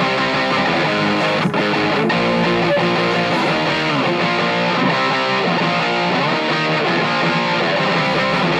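Electric guitar played through a Kasha Columbia amplifier set to a crunchy overdriven tone: a continuous run of picked notes and strummed chords.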